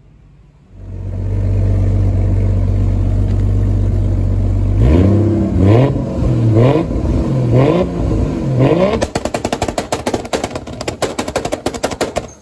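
Lexus SC300's turbocharged 1JZ-GTE inline-six idling, then blipped in short revs about once a second. About nine seconds in it is held on the two-step rev limiter, the exhaust crackling and popping rapidly, until it cuts off suddenly near the end.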